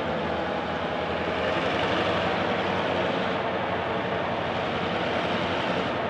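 EMD 567 diesel locomotive engines running hard in a steady, loud drone as they try to restart a stalled heavy train on a steep grade.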